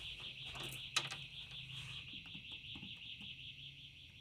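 GE Choice Alert alarm siren sounding faintly: a steady, high-pitched, fast-warbling electronic tone, with a single sharp click about a second in.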